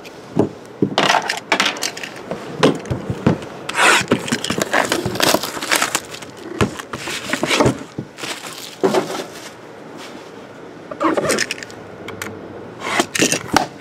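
Plastic shrink-wrap on a trading-card box crinkling and crackling in irregular bursts as the box is handled and the wrap is cut open, with scrapes and light knocks of the cardboard box.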